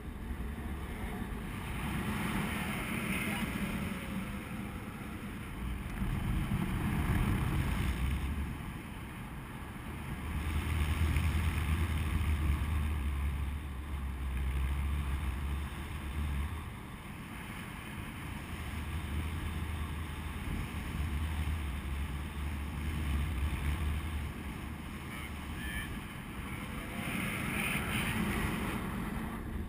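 Wind buffeting an action camera's microphone during paraglider flight: a low, noisy rush that swells and eases every few seconds.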